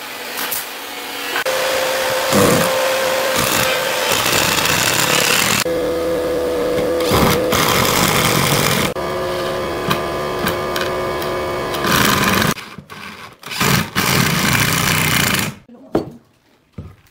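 Cordless drill driving screws into a pine frame: long runs of a whining motor, then several short bursts. It stops near the end, leaving a couple of wooden knocks.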